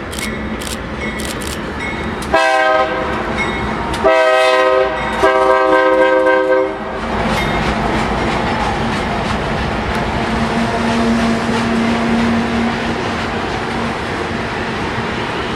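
Diesel locomotive horn on an iron-ore freight train, sounding three blasts, the last the longest, after a few sharp clicks of wheels over rail joints. After the horn the train rolls past as a steady rumble.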